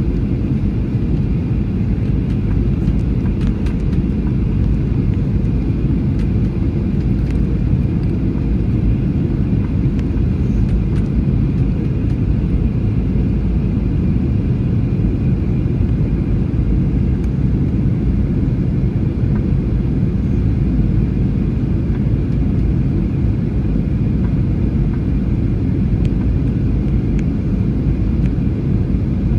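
Steady cabin noise of a jet airliner in flight on descent: a dense, even rumble of airflow and engines, with a faint higher whine above it.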